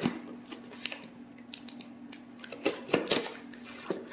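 A cardboard shipping box being handled and opened: a scattered string of light clicks, taps and scrapes.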